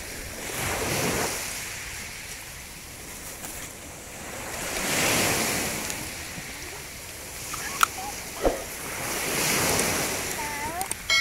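Sea waves washing onto a sandy beach, the surf swelling and fading three times about four seconds apart, with two sharp clicks near the end. A short electronic chime starts just as it ends.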